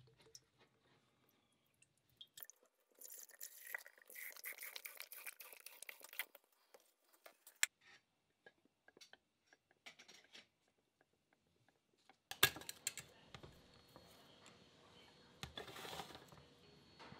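Distilled vinegar poured from a plastic bottle into a glass jar over a rusty hammer head, a hissing splash for about three seconds, with a few light clicks. About twelve seconds in there is a sharp knock, and later the glass jar shifts on a metal sheet.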